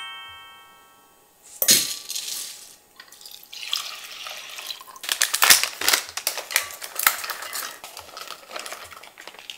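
Kitchen clatter as a dark seasoning sauce is poured and scraped with a spoon from a ceramic bowl into a rice cooker's inner pot, then nuts and dried fruit are added with many small clicks and rattles. A rising chime fades out during the first second.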